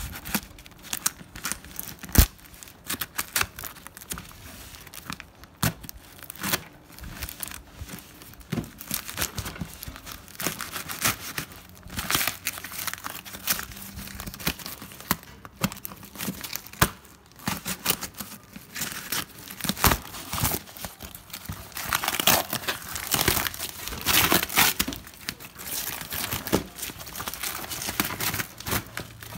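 A cardboard parcel being cut open and unpacked by hand: packing tape and paper tearing, and crinkled kraft packing paper and bubble wrap crumpling, in an irregular run of rustles and sharp crackles that gets busiest about three-quarters of the way through.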